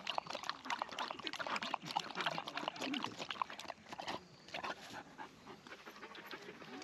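A poodle lapping water from a handheld portable dog water bottle: a quick, irregular run of wet clicks and splashes that thins out about five seconds in.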